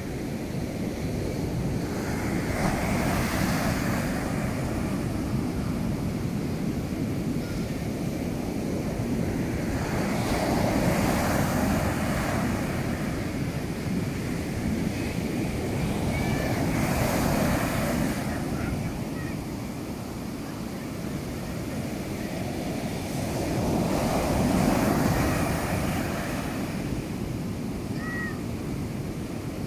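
Ocean waves breaking and washing up a sandy beach, a steady low rush of surf that swells four times as sets come in, about every six to seven seconds.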